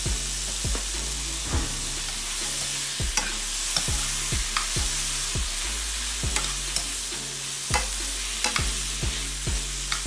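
Shrimp and vegetables sizzling in a hot frying pan while a metal spoon stirs them, knocking and scraping against the pan in irregular strokes, about one or two a second.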